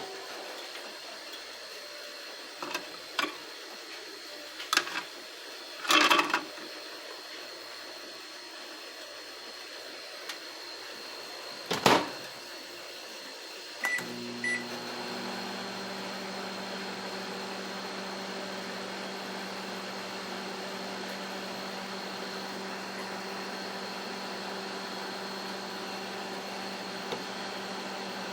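A few clicks and knocks, then two short keypad beeps about 14 s in. A microwave oven then starts running with a steady hum, cooking pasta in water.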